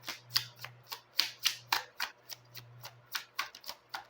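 Tarot cards being shuffled and handled, a quick irregular run of sharp card flicks and slaps.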